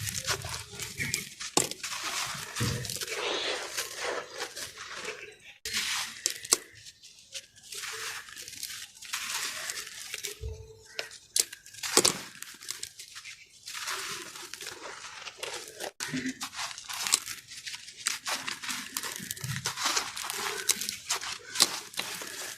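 A dry, crumbly yellow sand-cement block being crushed and broken into soft chunks: continuous crunching and crackling with many sharp little snaps. It breaks off briefly twice, about six seconds in and again near sixteen seconds.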